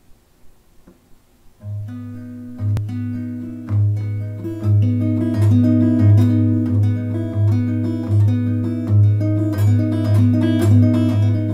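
Acoustic guitar fingerpicked, starting about two seconds in: a low bass note repeats under a pattern of higher plucked notes.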